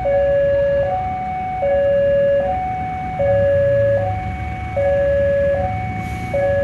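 Railway level-crossing warning alarm sounding: an electronic two-tone signal alternating a lower and a higher note, each held just under a second, warning that a train is about to pass. A low rumble runs underneath.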